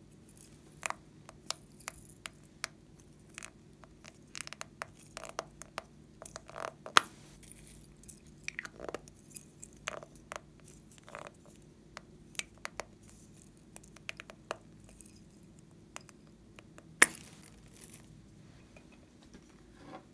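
Hard plastic ball capsules handled and twisted open by hand: scattered small clicks, taps and creaks of plastic, with one sharp click about three-quarters of the way through the loudest.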